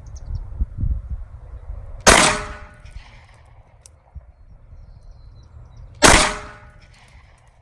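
Two shots from a Glock 43X 9mm pistol, about four seconds apart, each a sharp crack with a short ringing tail.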